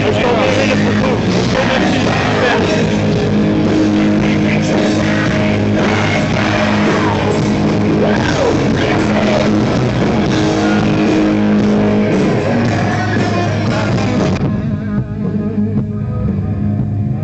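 Loud rock music. About fourteen seconds in, the higher parts drop away, leaving steady low held notes.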